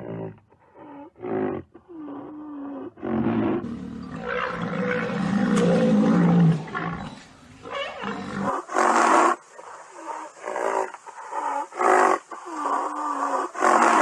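Rhinoceros calls: a string of short calls, some dipping and rising in pitch, with one long loud call of about four seconds near the middle. More short calls follow at roughly one a second.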